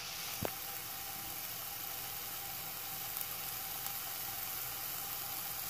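Lion's mane mushroom pieces frying in oil in a hot nonstick pan: a steady sizzle, with a single sharp click about half a second in.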